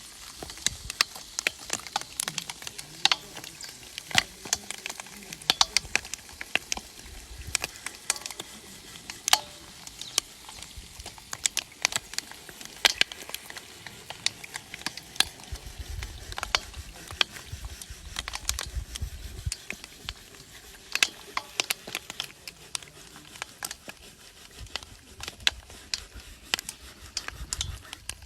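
Close-up crunching and chewing of dry multani mitti (Fuller's earth clay): sharp, irregular cracks and crackles as the hard clay breaks between the teeth, with low mouth thuds underneath.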